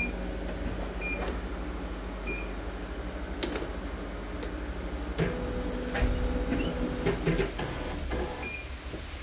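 A CNY computerized embroidery machine's control panel beeps as its buttons are pressed: short, high electronic beeps, three in the first two and a half seconds and one more near the end. A steady low hum runs underneath, and a patch of clicking with a steady tone comes around the middle.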